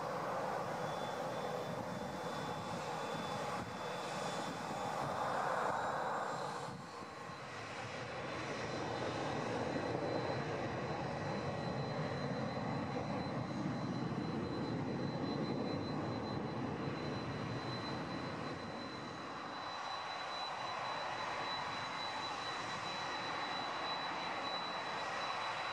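Boeing 747-400's four turbofan engines running as the jumbo taxis: a steady rushing with a thin, high whine held over it.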